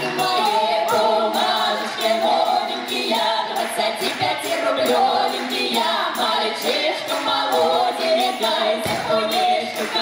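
A folk ensemble singing a Cossack folk song together, several voices in chorus, with a tambourine's jingles shaken in time with the singing.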